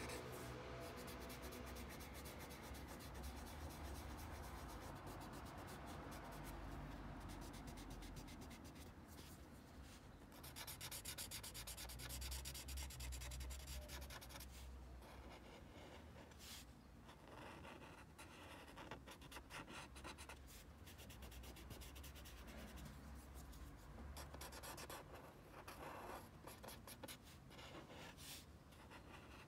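Paper tortillon (blending stump) rubbing graphite shading into a paper tile: a faint, scratchy rubbing in quick, repeated strokes.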